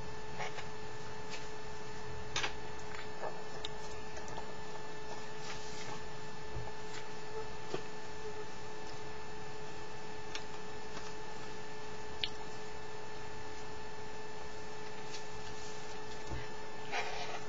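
Steady electrical hum with a high whine over a hiss, broken by a few faint clicks and taps.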